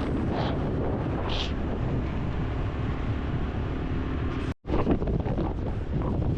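Wind buffeting the microphone over steady road and engine noise while travelling along a highway. The sound cuts out for an instant about four and a half seconds in.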